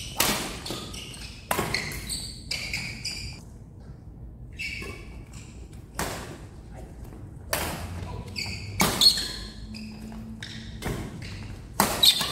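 Badminton rally: rackets striking a shuttlecock in a string of sharp hits at irregular spacing, with sneakers giving short high squeaks on the court floor between shots, echoing in a large hall.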